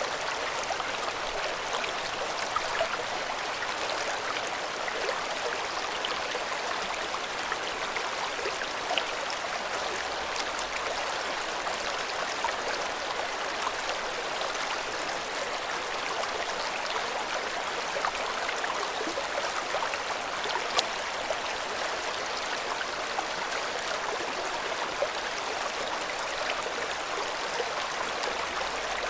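River water flowing and rushing steadily over stones, an even hiss with small scattered splashes and gurgles.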